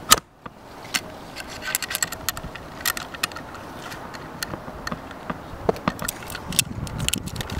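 Small metal scooter parts clicking and scraping by hand as a HIC shim and headset pieces are slid onto the fork's steerer tube: many light clicks, with a sharp click at the very start.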